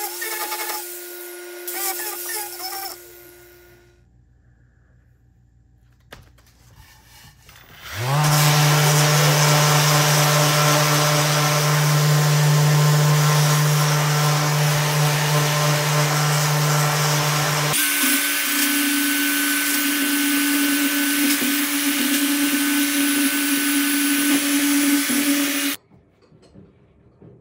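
An angle grinder with a wood-carving disc runs against a walnut bowl blank for the first couple of seconds. After a quieter spell, a random orbital sander spins up with a rising whine and runs steadily on the walnut. About eighteen seconds in, it gives way abruptly to another steady machine run with a different, higher note, which cuts off shortly before the end.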